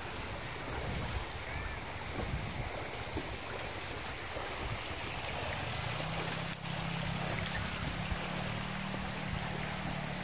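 Shallow river water rushing steadily over stones and gravel. A low steady hum comes in about six seconds in.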